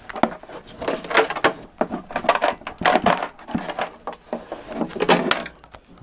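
Small loose parts (fixing screws and a little valve) rattling and clattering inside an empty plastic diesel-heater fuel tank as it is tipped and shaken, in several bouts.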